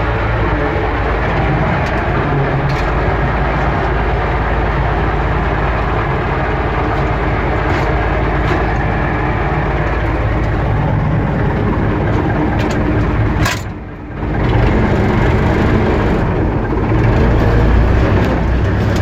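Universal U650 tractor's four-cylinder diesel engine running steadily at work, with a brief sharp dip in level about fourteen seconds in.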